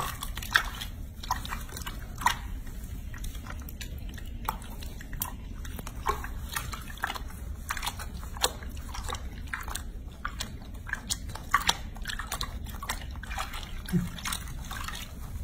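Small wet splashes, drips and clicks of soapy water in a sink basin as hands rub and wash a baby monkey's wet fur, irregular throughout over a steady low hum.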